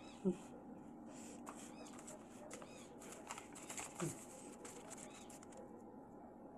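Faint rustling and handling noise as a torn-out sheet of notebook paper is unfolded and held up, with a brief low sound near the start and another about four seconds in.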